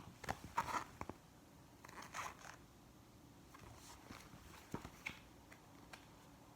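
Paper scraping and rustling in short, scattered strokes with a few soft clicks, as the pages of a book are handled.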